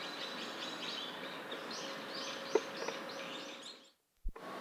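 Rapid high bird chirps repeat steadily, with one sharp knock on wood about two and a half seconds in from a Japanese pygmy woodpecker excavating its nest hole. Near the end the sound cuts out for a moment, broken by a short low thump, then outdoor ambience returns.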